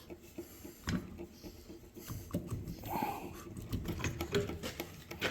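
Irregular light clicks and knocks of small metal engine parts and tools being handled, one after another, during an engine teardown.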